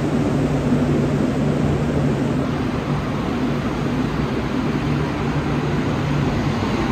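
A vehicle engine running steadily at a constant pitch, with no revving, over a broad hiss of background noise.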